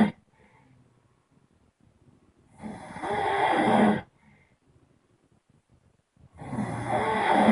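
A person snoring loudly. There are two snores, each swelling for about a second and a half and cutting off abruptly, the first about two and a half seconds in and the next near the end, with quiet between.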